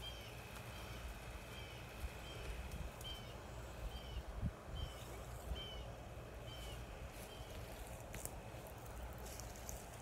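A bird calling a short, high chirp over and over, about one and a half times a second, stopping about seven seconds in. It is faint against a low steady rumble, with a few soft knocks.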